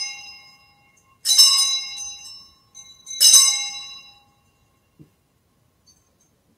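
Altar bell rung at the elevation of the chalice, signalling the consecration of the wine. Two bright, many-toned rings, each fading over about a second, follow the dying tail of an earlier ring. A faint knock comes about five seconds in.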